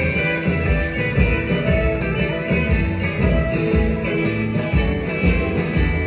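Live band playing an instrumental passage of a blues-rock song, with piano and drums, heard from the audience seats of a theatre.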